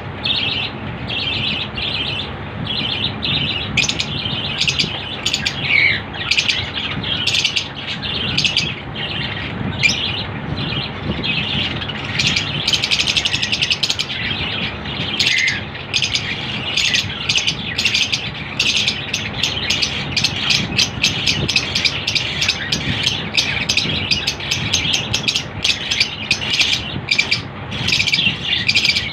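Pet lovebirds chattering with a steady stream of short, high chirps, growing faster and denser about halfway through.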